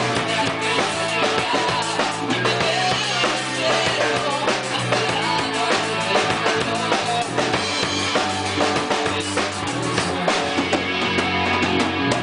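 A live band playing an instrumental passage: a drum kit keeps a steady beat with bass drum and snare under sustained low and mid-range notes from the other instruments, picked up by room microphones.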